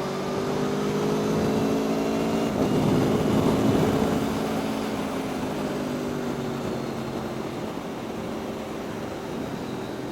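Aprilia Tuono V4 1100 RR's V4 engine under way with rushing noise around it, pulling and growing louder for the first few seconds, loudest around three to four seconds in. Then the revs fall slowly and steadily as the bike rolls off.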